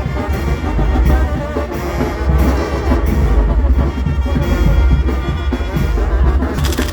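Brass band music: trumpets and trombones playing over drums, with a heavy, steady bass underneath.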